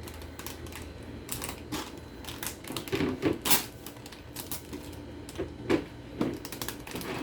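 Small plastic toy packets crinkling and crackling as they are handled and torn open, in an irregular run of crackles, loudest about three seconds in and again near six seconds.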